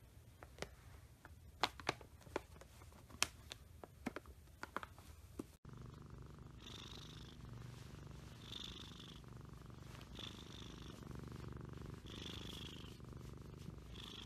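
Scottish Fold cat purring, a steady low rumble with a soft breathy swell about every two seconds, while being stroked on the head. Before it, a run of light clicks and taps.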